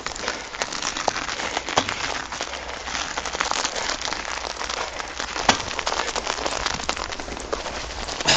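Packed snow crunching and crackling continuously as a dog and its musher move along a snowy trail, a dense run of small crackles with a sharper crack about five and a half seconds in.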